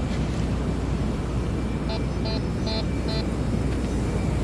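Steady wind and surf noise with a low rumble on the microphone. About two seconds in, a metal detector gives four short beeps in quick succession.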